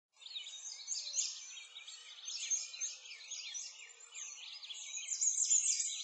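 Many birds chirping and singing at once, a busy chorus of quick rising and falling chirps that starts just after the opening.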